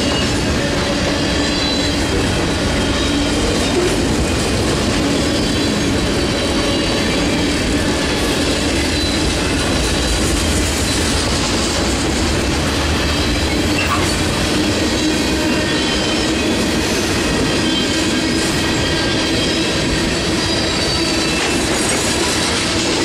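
Mixed freight train of boxcars, hoppers and tank cars rolling steadily past on jointed-free steel rail, wheels clattering over the track with faint, steady wheel squeal.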